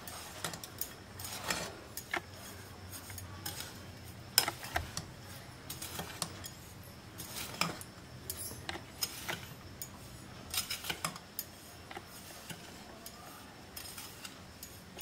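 A spoon scraping and clicking against a glass bowl as a dry grated-coconut stuffing mix is stirred, with scattered soft clicks at irregular intervals.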